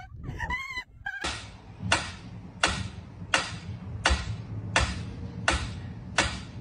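A mechanical pendulum metronome ticking steadily, about one sharp tick every 0.7 s, eight ticks in all. Before it, in the first second, come short high calls that waver in pitch.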